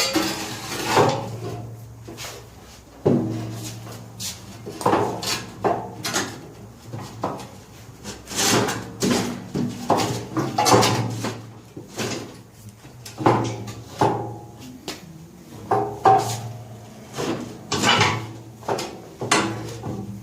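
Heavy steel loader parts being shoved and worked into place by hand: an irregular run of clunks, knocks and scrapes, metal on metal and on wood, about one a second.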